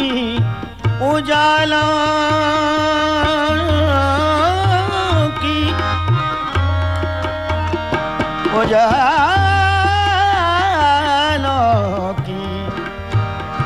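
Ghazal music without sung words: tabla keeping time under a melody line that slides between notes, with vibrato.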